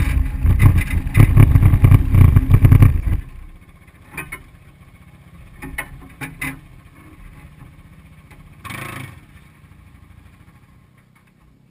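Side-by-side UTV engine running, with wind buffeting the mounted camera's microphone, cutting off abruptly about three seconds in. After that only faint, intermittent engine sounds from another UTV far off across the dunes.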